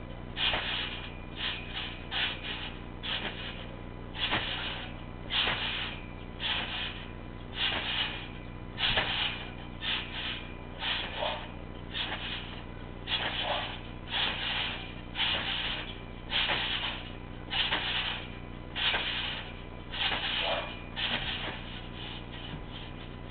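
Backyard trampoline in use: the mat and its springs give a short, noisy creak with each bounce, about once a second, with uneven gaps between some jumps.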